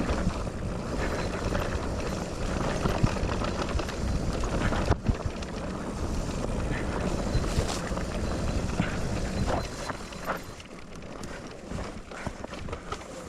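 Electric mountain bike rolling over a rough, rutted dirt trail: a steady rumble of tyres and wind on the microphone, with scattered clicks and knocks from the bike rattling over bumps, easing off a little near the end.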